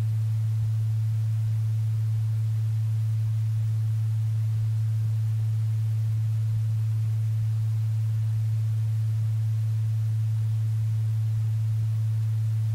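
A single steady low pure tone, unchanging in pitch and level: the base tone of a binaural beat for meditation.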